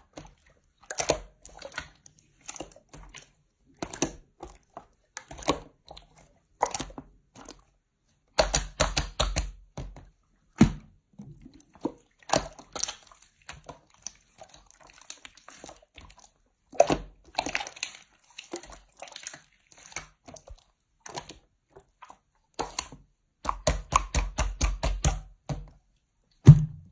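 Slime being squished and poked by hand, making wet clicks, crackles and pops in irregular bursts, with two quick runs of about five pops a second about a third of the way in and near the end.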